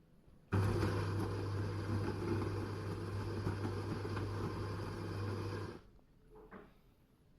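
Bosch CTL636ES6 fully automatic coffee machine running at the start of a cappuccino: a steady mechanical hum that starts about half a second in and cuts off after about five seconds.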